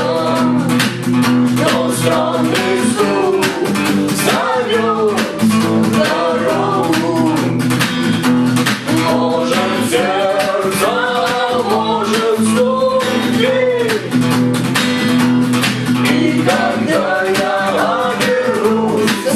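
Instrumental break of a rock song: a melodic lead line over guitars, bass and a steady drum beat.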